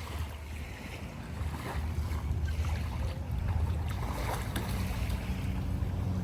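Watercraft engine running over open water, a low hum with a steadier engine note coming in past the middle, with wind buffeting the microphone.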